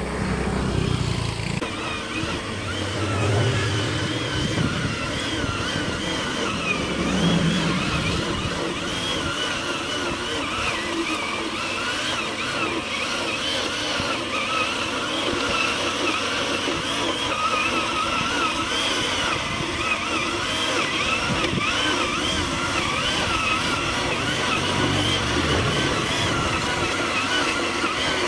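Backpack brush cutter fitted with a homemade rotary weeding head, its small engine running while the head is worked through weeds. The engine's pitch wavers up and down continuously.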